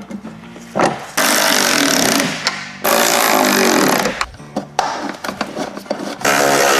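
Power tool running in three bursts of about a second each, driving fasteners while an evap canister is bolted on.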